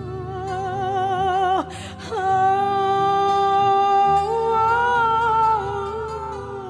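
A woman singing long held notes with vibrato over a low sustained accompaniment. The voice breaks off briefly about two seconds in, then holds a long steady note that swells and falls back.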